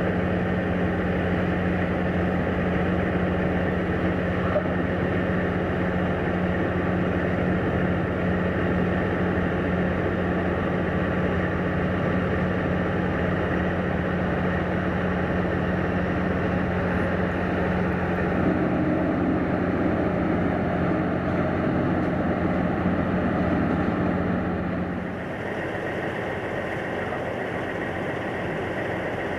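Diesel engines of semi-trucks hauling cattle trailers running steadily at idle and low speed, a steady low hum. About 25 seconds in the sound drops to a quieter, thinner hum.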